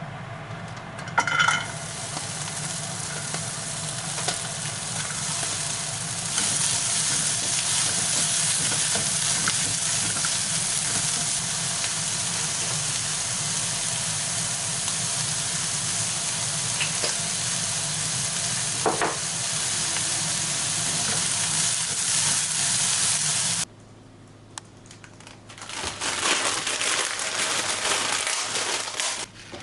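Food sizzling in hot oil in a pan while being stirred, with a ringing metal clink about a second in. The sizzle cuts off suddenly about 24 seconds in, then returns with utensil clatter near the end.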